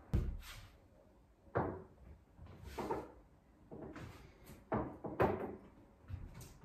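Plates and tableware being set down on a cloth-covered table: a series of short knocks and clatters, roughly one a second.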